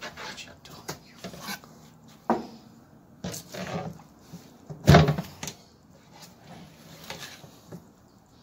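A whole golden trevally being handled and turned over on a cutting board: a string of wet knocks and rubbing noises, with a heavy thud about five seconds in as the fish is slapped down onto the board.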